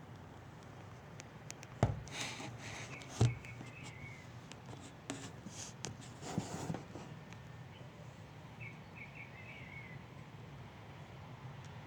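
Quiet predawn ambience with a steady low hum. Two sharp clicks and some scratchy rustling come about two and three seconds in, and more rustling around six seconds. Two brief runs of quick, high chirps, four or five notes each, come about two and a half seconds in and again near nine seconds.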